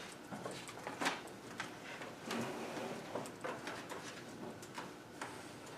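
Scattered light clicks and knocks over faint meeting-room noise, about a dozen short taps spread unevenly through the pause.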